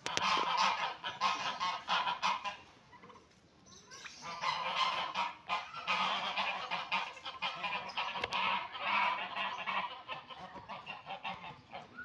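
Domestic geese honking, many overlapping calls in quick succession, with a brief lull a few seconds in before the honking resumes.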